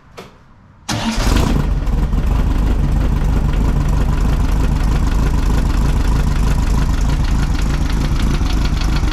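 1600cc air-cooled VW flat-four engine fires up about a second in and settles into a steady idle. It runs much happier, on all four cylinders, now that the swapped plug wires on cylinders 1 and 2 are back in their right places.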